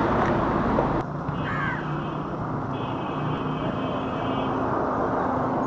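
Street traffic noise: vehicle engines and road noise, which drops to a quieter, steady engine hum about a second in.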